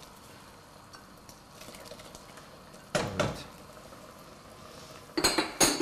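Metal ladle stirring and scooping soup in a stone-coated cooking pot, with a knock about three seconds in and a quick run of sharp clinks of the ladle against the pot near the end, over faint simmering.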